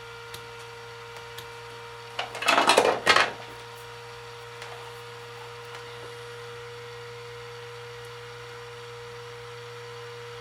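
Steady electrical hum, with a brief scraping rustle of handling about two seconds in that lasts about a second.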